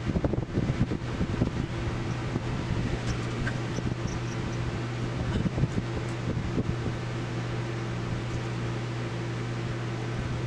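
A steady low hum with a faint higher tone over it, with scattered small clicks and taps in the first few seconds that die away.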